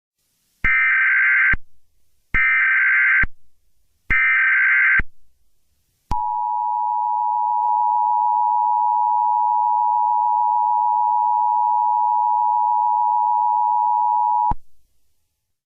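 Emergency Alert System header: three short bursts of data tones about a second apart, then the steady two-tone attention signal held for about eight seconds before cutting off abruptly. It is the sound that opens an emergency alert.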